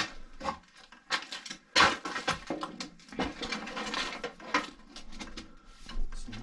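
PVC drain pipe and fittings knocking and scraping as they are handled and fitted together: a run of sharp plastic clacks and rubs, the sharpest about two seconds in.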